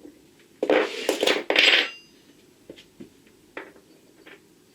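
Loose steel bolts rattling and clinking together for about a second, with a short ringing chink near the end, then a few light metallic clicks as they are handled.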